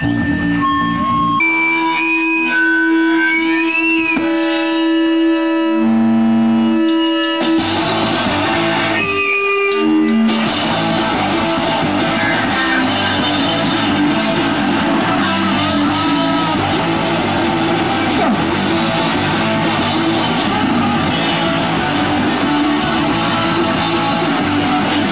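Live hardcore punk band: for the first several seconds, held, ringing electric guitar notes, some bending in pitch, then the full band with distorted guitar and drums comes in about seven seconds in, stops briefly, and launches into a fast song about ten seconds in.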